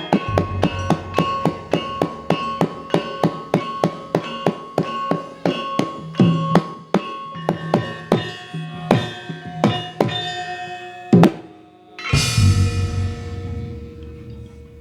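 Javanese gamelan playing the opening piece for a mask dance: kendang drum and metal keyed instruments struck in quick, even strokes that slow toward the end. A last loud stroke comes about eleven seconds in, then a deep gong stroke about a second later rings out and fades, closing the piece.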